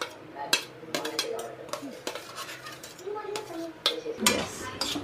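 A metal cooking spoon clinking and scraping against a pan as chopped onions are stirred in hot ghee, in irregular knocks.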